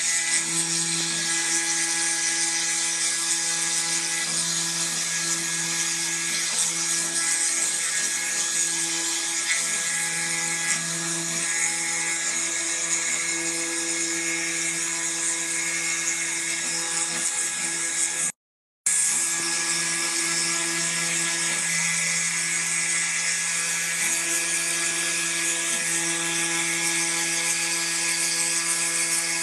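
Desktop CNC wood-carving machine running: the spindle motor gives a steady whine with a high hiss as it cuts, while the stepper motors' hum swells and dips as the carving head moves. The sound cuts out completely for about half a second roughly two-thirds of the way through, then carries on the same.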